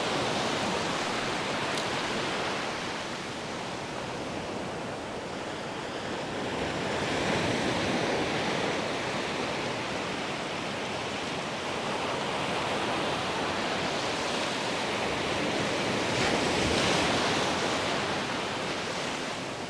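Ocean surf breaking and washing up a sandy beach: a steady rushing that swells twice, about eight seconds in and again near the end, as waves break.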